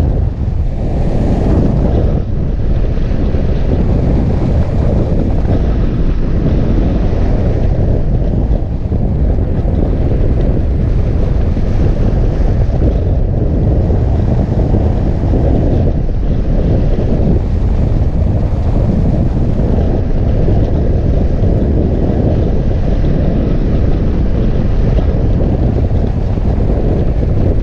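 Wind buffeting the microphone of a camera mounted on a hang glider in flight: a loud, steady low rumble of airflow at flying speed.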